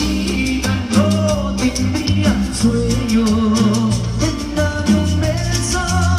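Live Mexican cumbia band playing through the stage sound system: steady bass and drums, percussion and horns under the lead singer's amplified voice.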